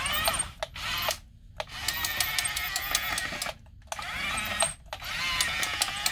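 Small electric drive motors and plastic gearboxes of a 1:32 RC T-90 toy tank whining in short bursts, their pitch wavering, as the tank turns in place. The longest burst, in the middle, carries a fast clicking.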